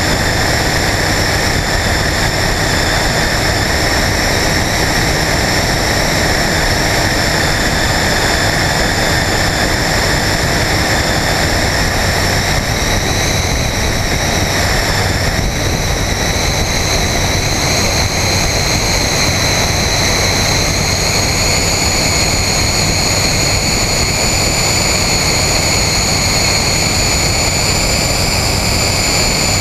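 Flight Design CTSW light aircraft's engine and propeller running steadily in flight, under a heavy rush of airflow over the outside-mounted microphone. A high whine runs through it and shifts up a little about halfway through.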